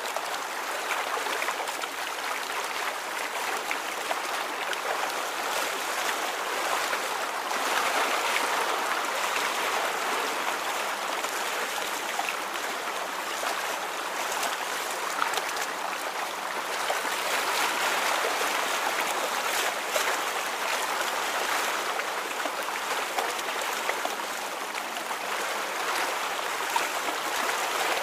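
Moving water: a steady, even rush with small splashy ticks scattered through it, swelling gently now and then.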